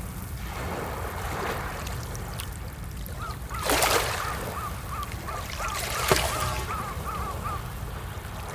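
Outdoor wind and water noise with a louder swell about four seconds in, and a bird giving a run of about a dozen short, evenly spaced calls, about three a second, in the middle.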